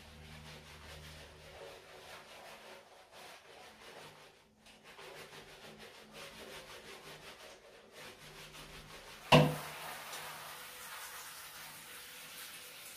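Brush bristles scrubbing a marmot's wet fur in quick repeated strokes. About nine seconds in comes a single sharp knock, followed by a steady hiss.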